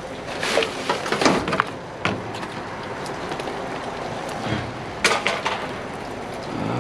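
Scattered knocks and clatters of items being shifted in a dumpster, one cluster about a second in and another about five seconds in, over a steady outdoor background.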